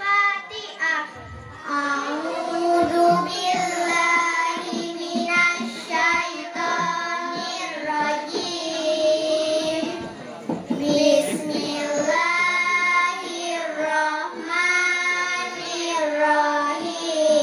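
A group of young girls reciting a short surah of the Quran in unison, chanting it in long melodic phrases with held and gliding notes.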